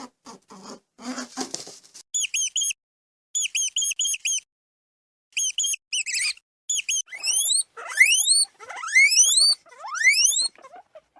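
A small animal's high-pitched squeaks: faint clicks and rustling at first, then short chirps in quick groups of three to five, then a series of squeaks that sweep upward in pitch.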